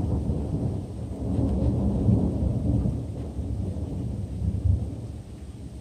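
Thunder rumbling: a long, low roll that swells and ebbs in waves, dying down near the end.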